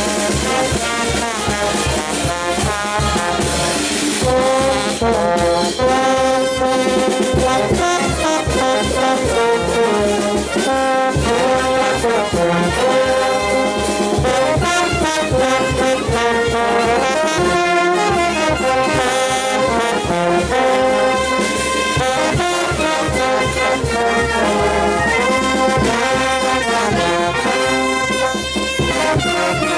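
Banda orquesta music: trumpets and trombones playing a melody together over a steady drum beat.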